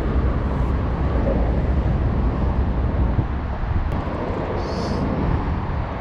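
Steady low outdoor rumble, with a brief high hiss about five seconds in.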